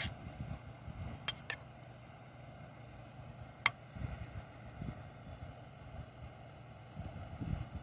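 Compact canister micro stove burner running with a steady low hiss under a pot of water being heated, with a few light sharp clicks.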